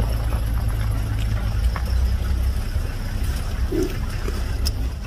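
Vehicle engine idling with a steady low rumble that eases off about halfway through.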